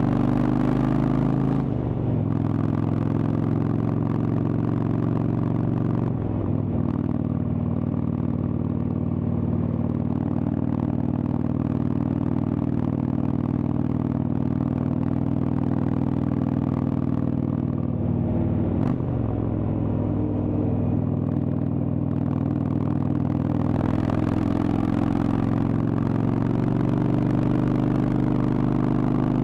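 Indian Chieftain's Thunderstroke V-twin running through a Freedom Performance exhaust under way, a steady deep exhaust note. The engine note dips briefly and picks up again about 2, 6 and 19 seconds in.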